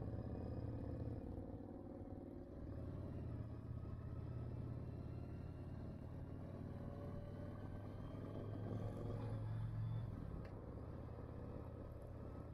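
Cruiser motorcycle engine running while riding. The revs dip about two and a half seconds in, climb again later, and ease off about ten seconds in.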